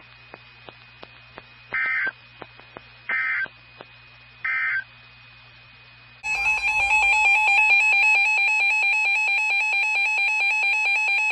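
Three short, screeching bursts of EAS SAME header data, then about six seconds in the Emergency Alert System two-tone attention signal starts and sounds steadily and loudly: the start of a new emergency alert.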